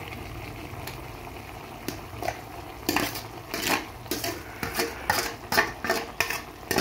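A metal spoon scraping thick ground masala paste out of a stainless-steel bowl into an aluminium cooking pot. It makes a run of irregular clinks and scrapes of metal on metal, starting about three seconds in, over a faint steady background noise.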